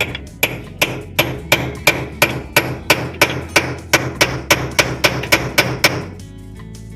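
Rapid, steady hammer blows, about three strikes a second, that stop about six seconds in.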